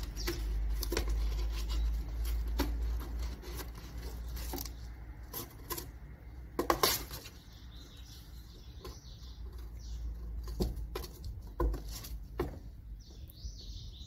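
Cat playing with a string by a cardboard box: scattered light taps and scuffs of paws and string against the cardboard and tile floor, loudest about seven seconds in.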